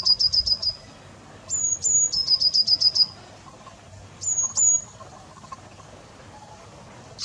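A small songbird singing a repeated phrase: two brief high notes followed by a quick trill of about six notes, sung about every two and a half seconds. The last phrase, near the end, stops after the two high notes.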